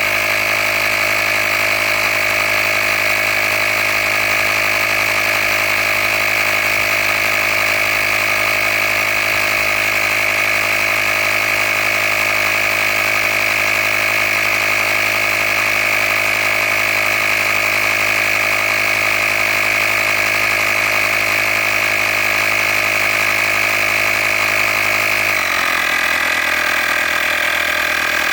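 Handheld cordless tire-inflator air compressor running steadily while pumping up a flat car tire, with a steady motor and pump whine. Its pitch drops noticeably near the end as the pump works against the rising tire pressure.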